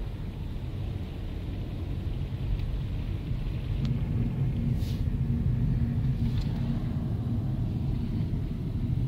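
Car driving on a snowy road: a steady low rumble of engine and tyres, getting louder about four seconds in as the car picks up speed, with a steady hum coming in. A few faint clicks.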